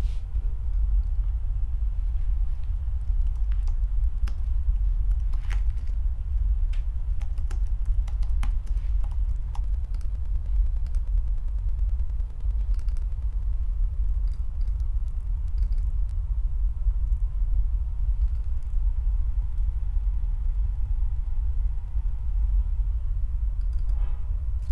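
Scattered clicks of a computer keyboard and mouse, denser in the first half, over a steady low rumbling drone.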